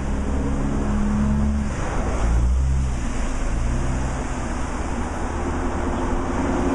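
Road traffic passing on a hillside road: car and taxi engines humming one after another over a steady rushing of tyres and air.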